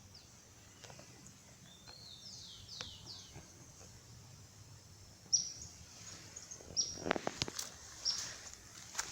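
Birds singing outdoors: series of short, high notes that slide downward, repeated in quick runs and louder in the second half. About seven seconds in, a few sharp crackles or rustles sound over the song.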